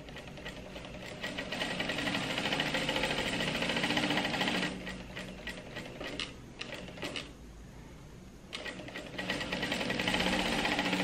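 Industrial single-needle sewing machine stitching a seam at a steady speed. It stops about four and a half seconds in, with a few light clicks during the pause, and starts stitching again near the end.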